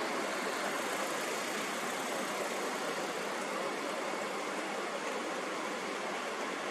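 A steady, even hiss-like noise, like a pink-noise sleep track, with no rhythm or changes.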